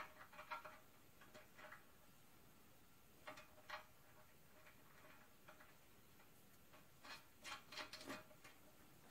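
Faint, scattered metallic clicks and taps in small clusters: near the start, around three seconds in, and again around seven to eight seconds. Some carry a faint ring. They come from a small wrench and fingers working against a cast-iron engine block.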